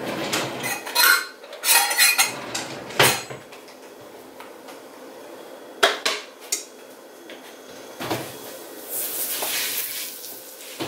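Metal kitchenware clattering: a quick run of clinks and knocks in the first few seconds, a single sharp knock about six seconds in, and a breathy rush of noise about nine seconds in as the oven is opened to take out the pizza pan.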